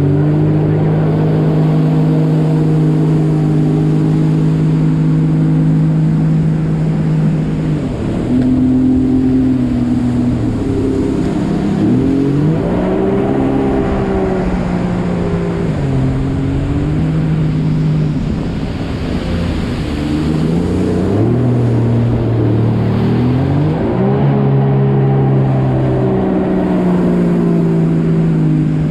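Jet ski engine running at steady throttle for the first several seconds, then easing off and opening up again several times, its pitch falling and rising with each throttle change before settling back to a steady run near the end.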